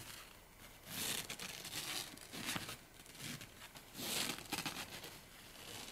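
Rustling and crinkling of a padded pet bed's quilted fabric in several short bursts as a tiny kitten scrabbles over it and climbs its rim.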